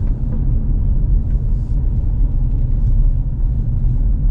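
Car driving along a highway: a steady low rumble of road and engine noise.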